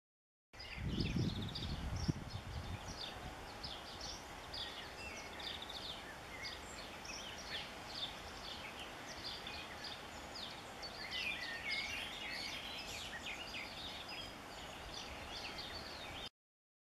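Several songbirds singing outdoors, with many short high chirps and trills overlapping, busiest near the end. There is a low rumble in the first couple of seconds.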